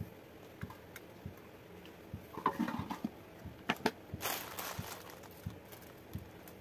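Small handling noises from hands working grasshopper bait over an aluminium pan and a plastic bottle: light clicks and taps, a few louder knocks about halfway through, and a short stretch of rustling about four seconds in.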